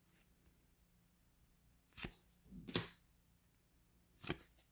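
Trading cards handled by hand as a pack is flipped through: three short, crisp snaps of card stock.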